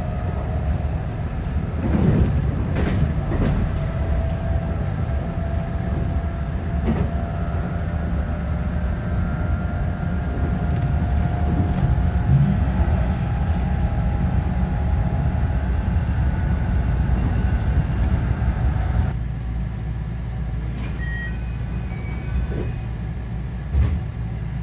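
JR West 221 series electric train running along the track: a steady rumble of wheels on rail with faint steady tones over it. About three-quarters of the way through the sound turns quieter and duller, and there is a single thump near the end.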